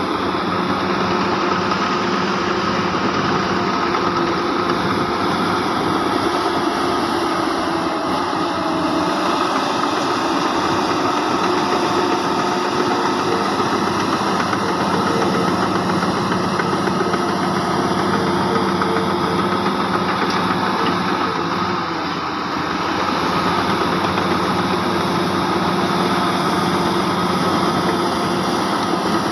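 Diesel engine of heavy earthmoving machinery running steadily, dipping briefly in loudness about three-quarters of the way through.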